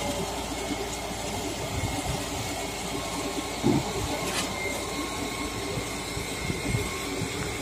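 Sany 47-metre truck-mounted concrete pump running steadily under load while pumping concrete, with a whine throughout. A heavy thump about halfway through is followed by a sharp click, part of the pump's repeating stroke cycle.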